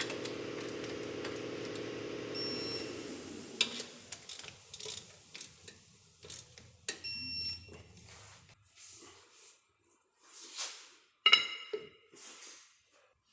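A small power tool's motor runs steadily for about the first three seconds, then stops. Scattered metallic clicks and clinks follow, some with short ringing tones, as tools and brake parts are handled.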